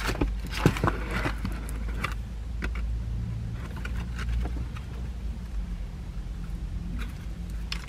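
Crunchy chewing of crispy fried chicken, with scattered sharp crackles and small handling clicks, over a steady low rumble inside a car.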